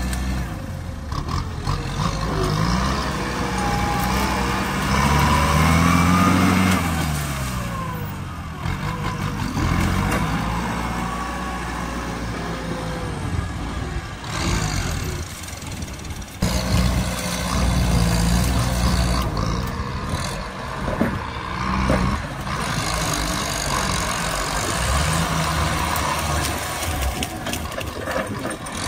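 Kubota tractor's diesel engine working hard under load as its front blade pushes over and uproots a bush, its pitch rising and falling again and again.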